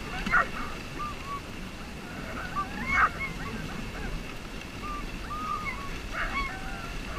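Sled dogs in harness giving many short, high, honking yelps and whines, excited while pulling the sled; the loudest cluster comes about three seconds in. A low rumble of sled runners and wind on snow runs underneath.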